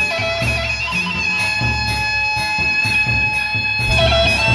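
Sasak gendang beleq gamelan playing a seated tabuh tokol piece. Large drums and cymbals keep a steady beat of about two strokes a second under a held, wavering melody line.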